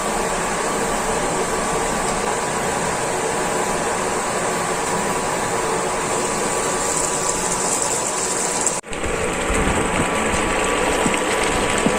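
Sardines and pechay in sauce simmering in a wok under a glass lid: a steady bubbling hiss. About nine seconds in it cuts out for a moment and comes back louder and more crackly, from the uncovered pan.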